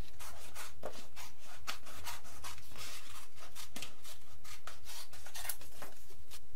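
Hand-tool strokes rubbing or scraping on the build material, irregular, about three a second.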